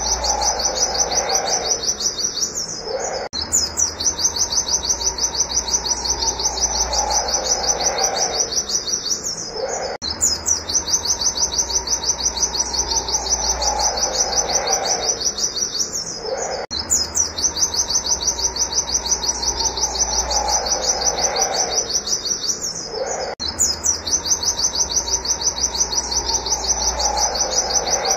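White-eye (pleci) singing its rapid 'wit wit' shooting call: a fast, steady stream of high chirps, many a second, broken by short pauses about every six or seven seconds. A fainter, lower sound repeats on the same cycle.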